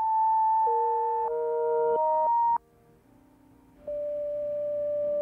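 Background synthesizer music of long, steady held notes that step between pitches. It cuts off suddenly about two and a half seconds in and comes back with a new held chord after about a second of near silence.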